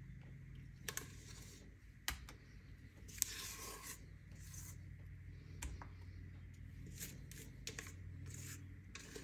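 Spatula scraping thick chocolate cake batter from a stainless steel mixing bowl into a Bundt pan: faint, irregular scrapes and light clicks, the longest scrape a little over three seconds in.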